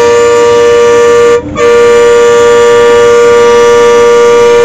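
Bus horn sounding loud on one steady tone, in two long blasts with a brief break about one and a half seconds in.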